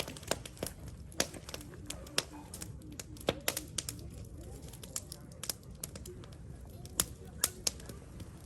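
Wood fire crackling in an iron fire pit: irregular sharp pops and snaps over a low steady rumble.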